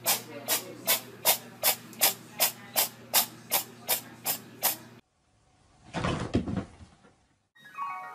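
An even run of sharp clicks, about two and a half a second, over a steady low hum, which stops suddenly about five seconds in. A short muffled rustle follows, then a few notes of a tune near the end.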